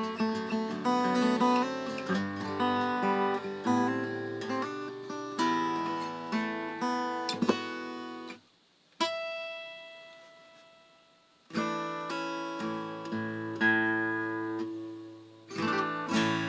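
Acoustic guitar played solo, picked and strummed chords. About halfway through, the playing stops and a single note is left ringing and fading before the chords start again.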